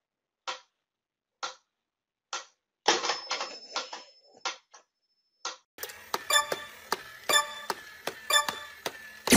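Mechanical metronome ticking about once a second, then a louder stretch of scuffling noise about three seconds in. From about six seconds on, a battery toy soldier gives rapid clicks with ringing tones.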